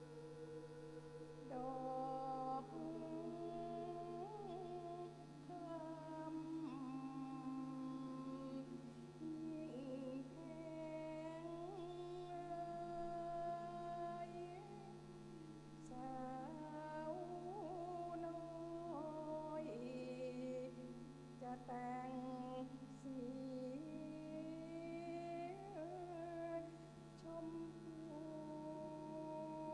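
Mixed choir singing a choral arrangement of a Central Thai folksong a cappella: several voice parts hold chords in harmony, sliding between notes, with a new phrase entering every couple of seconds.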